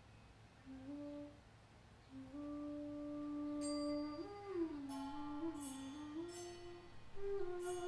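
Improvising ensemble starting a slow, quiet piece: long held notes, at first a single line, with more parts joining in about four seconds in, and a few soft metallic strikes ringing over them.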